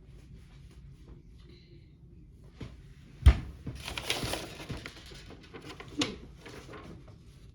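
Small plastic kit parts being handled during assembly: scattered clicks, a sharp knock about three seconds in, then a second or so of rustling.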